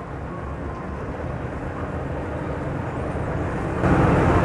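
Low, steady engine drone, slowly growing louder and stepping up in level near the end.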